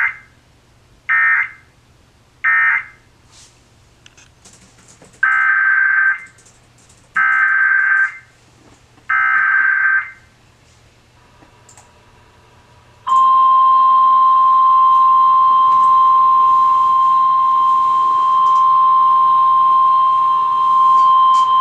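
Emergency Alert System SAME data bursts on NOAA Weather Radio: three short warbling bursts that close the previous message, then three longer bursts of about a second each that head the next alert. These are followed by the steady 1050 Hz weather radio warning alarm tone, held for about eight and a half seconds.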